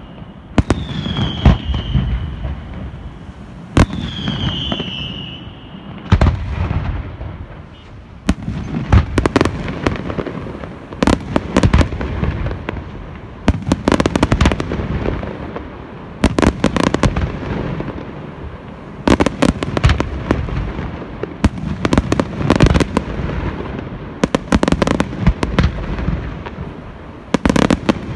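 Aerial fireworks shells bursting in rapid salvos: clusters of sharp bangs and crackle every couple of seconds over a continuous low rumble. A few short whistles falling in pitch sound in the first few seconds.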